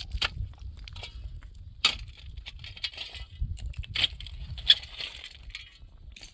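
Irregular crunching and clicking, a handful of short sharp sounds spread through a few seconds over a steady low rumble.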